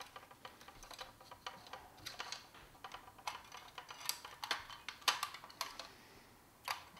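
Light, irregular plastic clicks and taps as hands work at the grey plastic housing of a vintage Kenner Imperial Troop Transporter toy, freeing its battery wires and inner parts. A few sharper clicks stand out in the second half.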